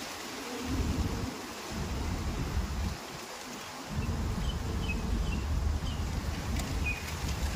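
Outdoor background: a low, uneven rumble that drops away for about a second partway through, with a quick series of small, high bird chirps in the middle.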